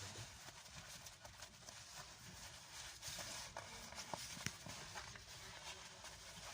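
Faint, irregular clicks and knocks over a low background hiss, as of a car seat and its straps being handled and fitted.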